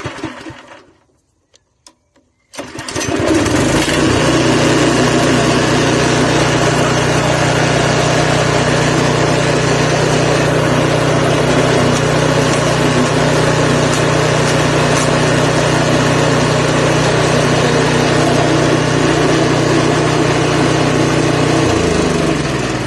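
Forest Master FM6DD wood chipper's 6 hp single-cylinder petrol engine running steadily at full speed, run to clear a jammed feed hopper. Near the end it is switched off and winds down, its pitch falling.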